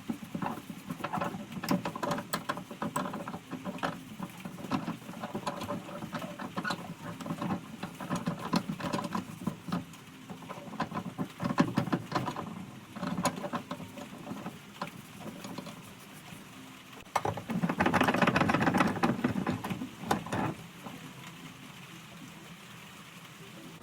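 A rag wiping and rubbing down the metal parts of a timber carrier with paint thinner: irregular scratchy rubbing with small clicks and knocks, and a louder spell of steady scrubbing for about three seconds a little past the three-quarter mark.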